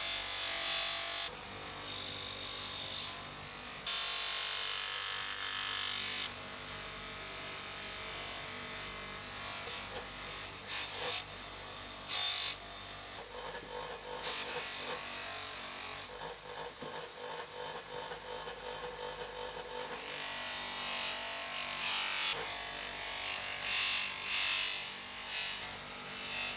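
Abrasive hand work on the steel of an old adjustable wrench: repeated rubbing and scraping strokes, in short passages that change abruptly, with a run of quick even strokes in the middle.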